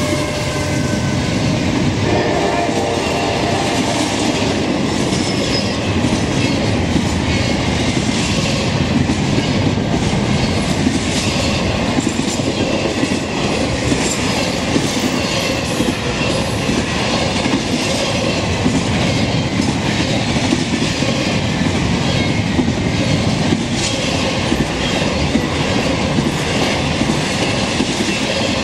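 Norfolk Southern intermodal freight train's double-stack container cars and trailer flatcars rolling past: a loud, steady rumble of steel wheels on rail with frequent clacks.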